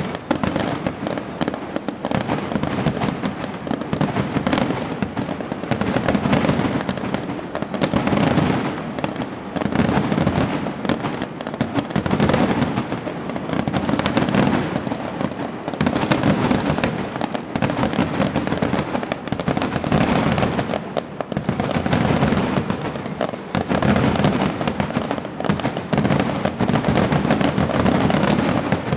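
Fireworks finale: aerial shells bursting in rapid, unbroken succession, the bangs and crackle overlapping into a continuous, relentless barrage.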